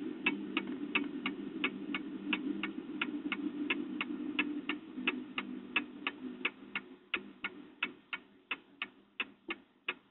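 Steady clock-like ticking, about three ticks a second. A low steady drone under it fades out about two-thirds of the way through.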